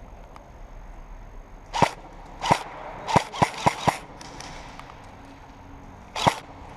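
Airsoft gun firing seven sharp shots: two singles, then a quick run of four, then one more near the end.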